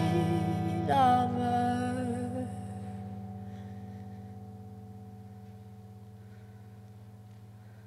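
A woman's last sung note, with vibrato, sliding down and stopping a little over two seconds in, over a sustained accompanying chord. The chord then rings on alone and slowly fades away, the song's final note dying out in the reverberant church.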